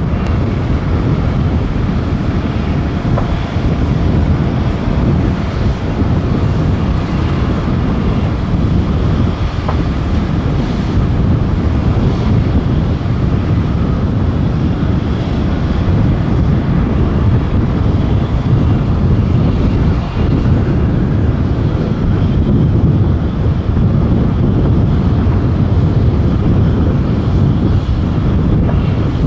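Steady low rumble of Boeing 737 jet engines at climb power after a touch-and-go, mixed with wind buffeting the microphone.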